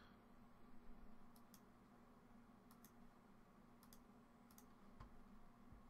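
Faint computer mouse clicks, four or five of them, most heard as a quick double tick of press and release, over a low steady hum.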